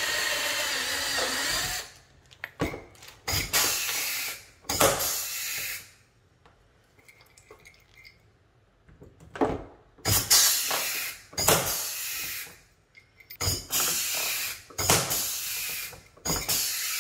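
A cordless drill runs for about the first two seconds, drilling a rivet hole through the canard and bumper. Then an air-powered rivet gun fires in a series of short hissing bursts, about seven, with sharp clicks, as it pulls and sets pop rivets.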